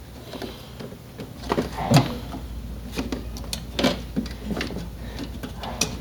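Scattered clicks and light knocks of a CPU air cooler and its fans being handled, the two loudest knocks about two seconds and four seconds in, over a low hum.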